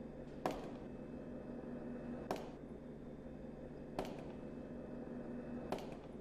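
Four sharp ticks, evenly spaced at about one every second and three-quarters, each with a short ringing tail, over a faint steady hum.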